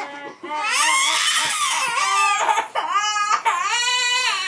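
A young girl crying and wailing: one long, high-pitched wail, then two shorter wailing sobs.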